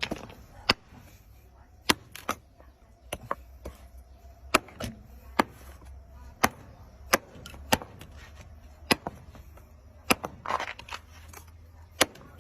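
Knife chopping down onto a cutting board: about fifteen sharp chops at uneven intervals, roughly one a second, sometimes two in quick succession.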